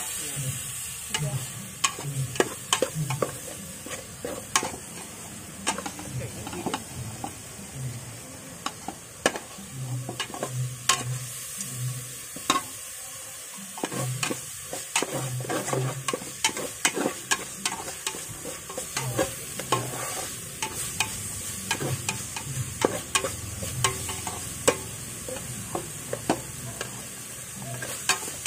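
Metal ladle stirring a herb paste frying in oil in a metal pot, scraping and clinking irregularly against the pot, over a steady sizzle.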